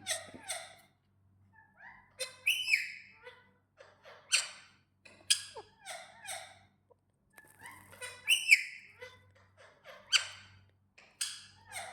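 Pet parrot calling: a string of short squeaks, chirps and whistles about once a second, many gliding up or down in pitch.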